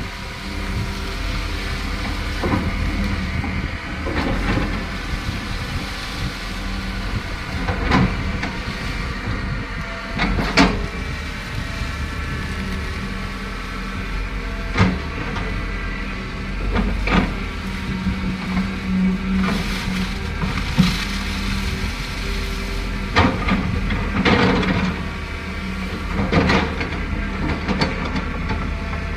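Kobelco excavator's diesel engine running steadily under load, with sharp knocks and clanks every few seconds as the machine works.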